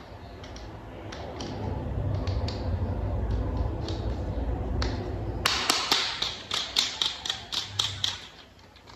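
Small hard toy parts being handled: a low rubbing rumble, then a quick run of about a dozen sharp clicks, roughly four a second, that stops shortly before the end.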